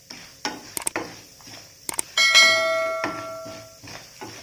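A stirring spoon scrapes and knocks against a metal pan while dal and dried red chillies fry in oil with a steady sizzle. About two seconds in, a sharp metal strike rings out clearly for about a second and a half, the loudest sound here.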